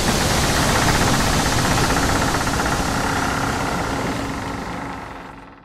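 Engine-like running rumble with a fast, even pulsing, fading away over the last second or so.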